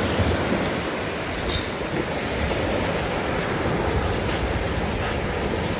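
Surf washing onto a sandy beach, a steady rush of breaking waves, with wind rumbling on the microphone.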